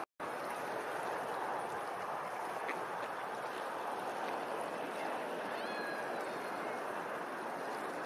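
Steady rushing wash of rippling, lapping water, with a few faint high bird calls about six seconds in.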